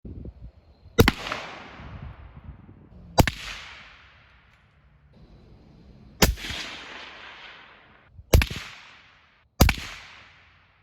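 .223 bolt-action rifle shots heard from near the target 50 yards downrange: five sharp cracks a second or more apart, each trailing off in a rolling echo. The shots are a mix of unsuppressed and suppressed through a stainless steel Pale Rider suppressor. With the suppressor, the bullet's sonic crack and its impact make up most of the sound.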